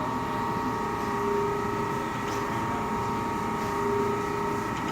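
Brown & Sharpe Micromaster 1236 automatic surface grinder running with its grinding wheel spinning: a steady machine whine made of several held tones, with a lower tone that swells about every two and a half seconds. It is running smoothly, the sound of a machine in good order.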